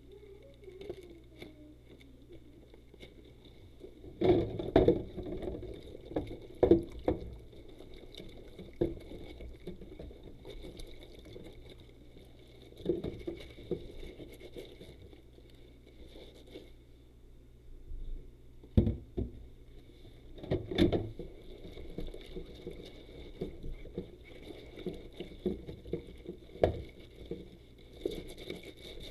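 Rubber dishwashing gloves squeaking and scraping as they scrub, in uneven bursts of rubbing strokes, with a louder cluster a few seconds in and again around the middle.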